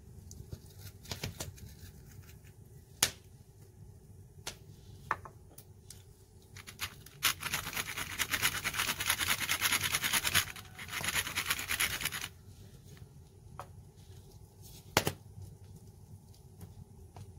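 Hand pepper mill grinding black pepper in two spells of rapid fine clicking, about five seconds in all. A few sharp knocks come before and after, as small items are put down on a wooden cutting board.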